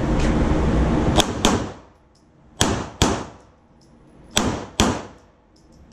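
Six handgun shots fired as three quick double taps, the pairs roughly a second and a half apart, each shot a sharp crack with a short echo. A low rumble runs under the first second, before the first shot.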